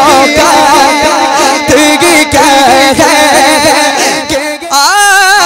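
Man singing a naat into a microphone in an ornamented, wavering melody over a regular percussive beat. About a second before the end the beat drops out and the voice carries on alone on a higher line.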